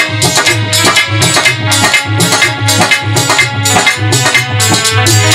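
Instrumental interlude of Indian ghazal music: hand drums keep a steady rhythm of repeated low strokes under a sustained melody line.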